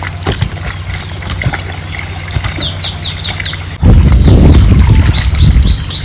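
A bird chirping in quick runs of short falling notes over a steady low hum; about four seconds in, a loud rough low rumble covers it for about two seconds.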